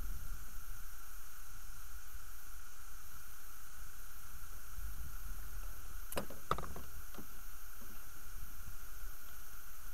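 Steady low wind rumble on a small camera microphone, over a constant electronic hiss. A quick run of a few sharp clicks and knocks comes about six seconds in.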